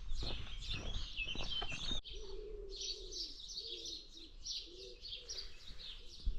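Morning birdsong: many small birds chirping high and busily. After an abrupt change about two seconds in, a dove coos low and wavering beneath the chirping.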